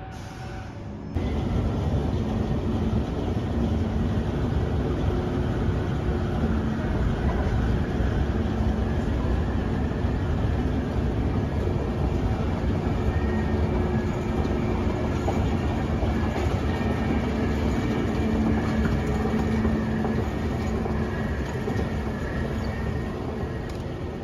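Steady, loud mechanical rumbling with a low hum, starting abruptly about a second in and easing slightly near the end.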